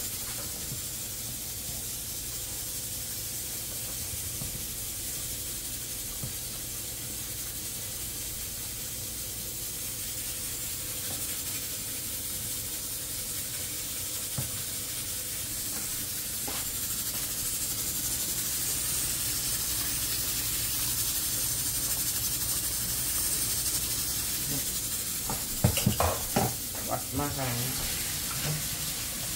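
Flour-coated chicken deep-frying in a pot of oil: a steady sizzle and hiss. A few loud knocks and clatters come near the end.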